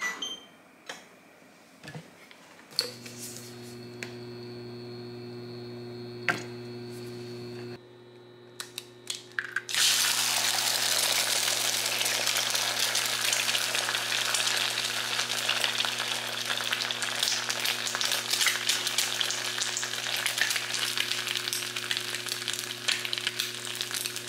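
An egg fries in hot oil in a non-stick frying pan, sizzling and crackling steadily from about ten seconds in. Before that, and faintly under it, an induction hob hums steadily with a thin high whine, starting about three seconds in.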